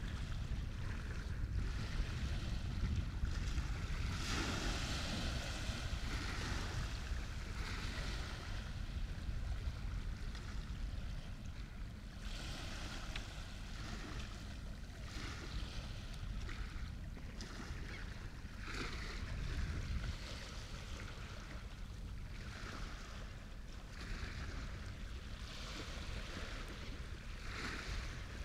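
Waves washing and splashing in repeated surges every second or two over a steady low rumble.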